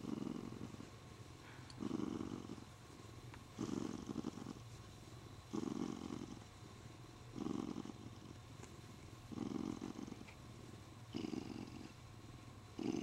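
Siamese cat purring while being stroked, the purr swelling into a louder pulse about every two seconds: a sign of contentment.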